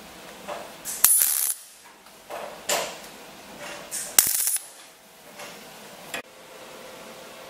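MIG welder tack-welding a steel sheet repair panel: two short welding bursts about three seconds apart, each under half a second, starting and stopping sharply.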